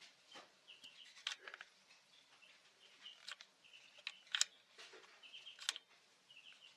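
Small birds chirping in short, quick series of calls, repeated every second or so, with a few sharp clicks in between.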